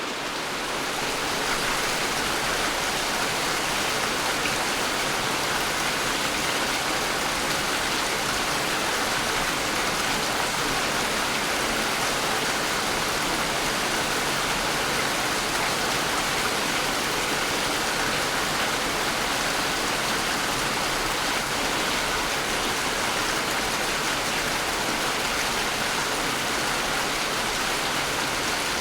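Steady, heavy rain falling, a dense even hiss that fades in over the first second or two and then holds level.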